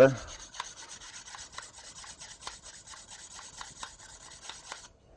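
A soft sharpening stone rubbed in quick repeated strokes against a hedge shear blade, honing off the wire edge so the two blades don't bite into each other. The scraping stops near the end.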